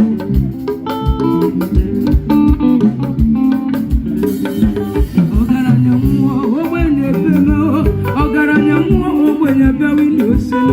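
Live band music with plucked guitar lines over a steady bass beat; singing comes in about four seconds in.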